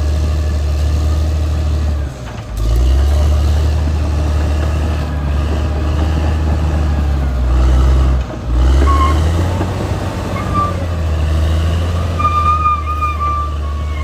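Caterpillar D6R XL bulldozer's diesel engine running steadily under work. The drone dips briefly twice, about two seconds in and again past the middle. A high thin tone comes in near the end.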